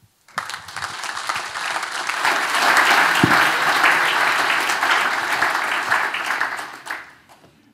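Audience applauding, swelling over the first few seconds and dying away about seven seconds in.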